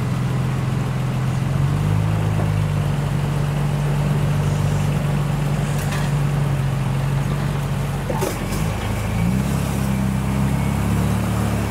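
Nissan Patrol GU (Y61) 4WD's engine running steadily as the truck crawls up a rock step, its pitch stepping up slightly about two seconds in and shifting again near the end.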